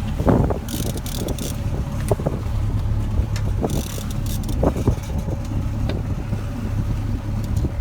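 Boat engine running steadily under way, a low even hum, with wind noise on the microphone. Two brief hissing bursts come about a second in and about four seconds in.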